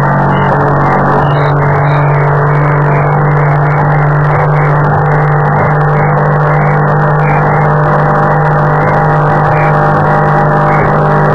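Powerboat engine running steadily at speed, heard from on board: a loud, even drone that holds one pitch.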